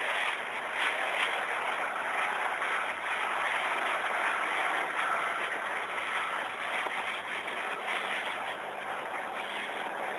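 Steady rushing noise of a Tamar-class lifeboat under way at speed: its wake and spray churning along the hull.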